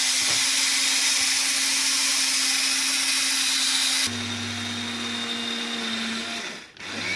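Electric coffee grinder motor running steadily as it grinds nigella (black seed) to powder. About four seconds in it drops suddenly in level, and near the end it stops for a moment and starts again, its pitch rising as it spins back up.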